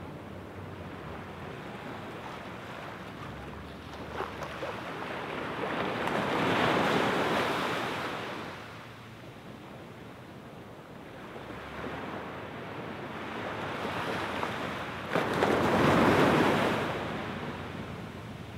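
Small waves washing onto a sand beach: two waves swell up and die away, the second, near the end, a little louder.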